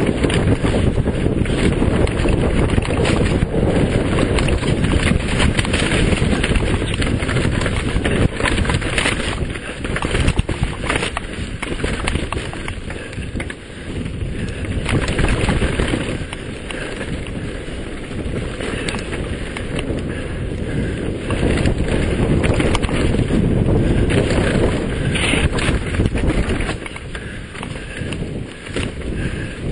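Wind buffeting the microphone of a mountain bike moving downhill, with a steady low rumble and frequent small rattles and knocks as the bike runs over rough, rocky ground.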